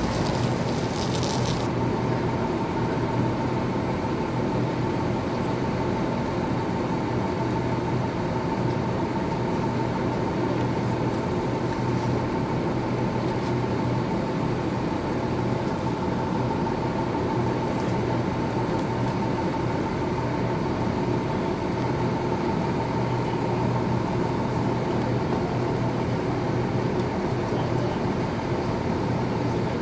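Steady drone of idling fire-engine diesel engines, a low hum with a thin high tone running through it.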